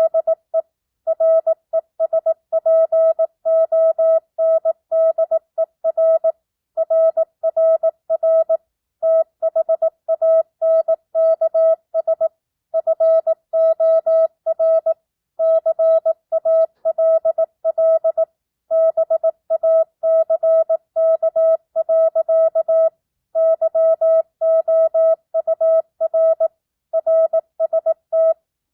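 Morse code (CW) sidetone: a single steady mid-pitched beep keyed on and off in dots and dashes at 18 words per minute with standard, non-Farnsworth spacing, sending a continuous run of characters and words of a simulated amateur radio contact.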